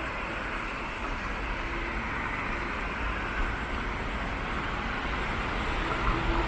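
Road traffic on wet pavement: a steady hiss of tyres with a low engine rumble, swelling slightly near the end as a vehicle draws closer.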